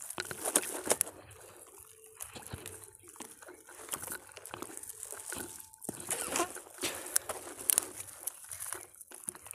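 A large catla being worked free of a monofilament fishing net by hand: irregular rustling and scraping of the netting, with scattered short knocks and clicks.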